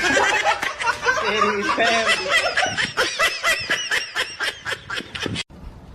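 A person laughing hard in rapid, high-pitched bursts, about five a second, cutting off suddenly near the end.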